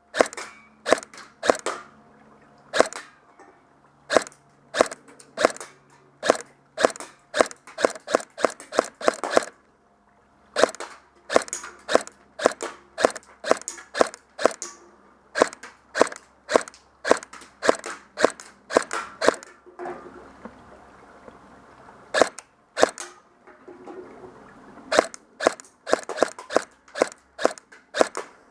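Airsoft gun firing shot after shot, dozens of sharp cracks in runs of about two to three a second, with short breaks about ten and twenty seconds in.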